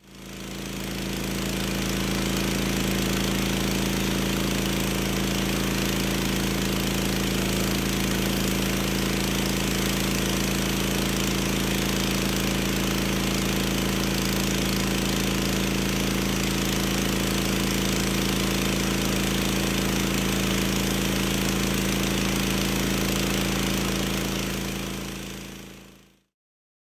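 Pressure washer running steadily with its telescoping wand spraying: a constant machine hum under a broad hiss. It fades in at the start and fades out about a second before the end.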